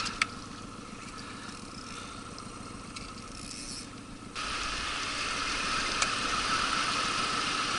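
Small outboard motor on an inflatable boat running steadily at low revs, a low rumble under a steady mid-pitched whine. It gets abruptly louder a little past halfway through.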